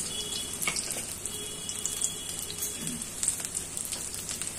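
Besan-battered green chilli pakoras deep-frying in hot oil in a kadhai: a steady sizzle with fine crackles and pops.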